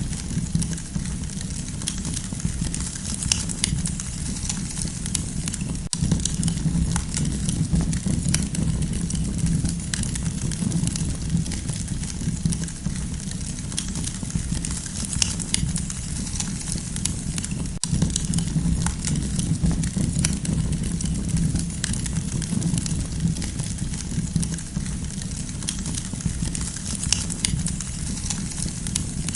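Wood campfire crackling, with frequent sharp pops and snaps throughout over a steady low rumble.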